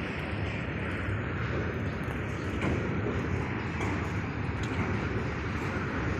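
BCNA covered freight wagons rolling past on the rails as the freight train departs, a steady rumble with a few faint clicks.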